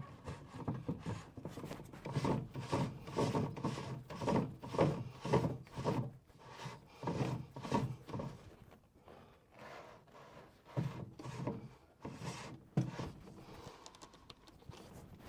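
Plastic filter housing of a Manor Trio water filter system being twisted on by hand: repeated rubbing and scraping of the threads and greased gasket in uneven strokes, sparser and fainter in the last few seconds.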